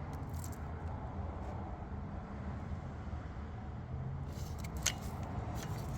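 A vehicle engine idling with a steady low hum, with a few faint clicks near the end.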